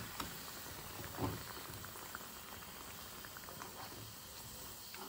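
Tapioca cutlets deep-frying in hot oil, the oil bubbling steadily with fine crackles, and one soft knock about a second in.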